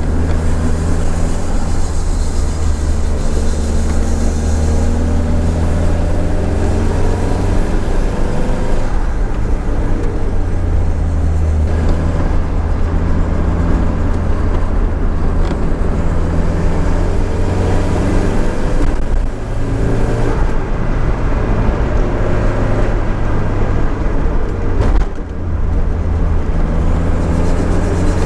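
Nissan 200SX S13's turbocharged CA18DET four-cylinder engine pulling through the gears, revs rising and falling, with brief drops in engine sound about two-thirds of the way in and again near the end as the throttle is lifted.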